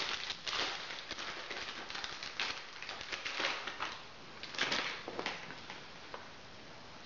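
A small clear plastic bag crinkling and rustling as it is handled, in irregular crackly bursts, the loudest near the start and about two thirds of the way in.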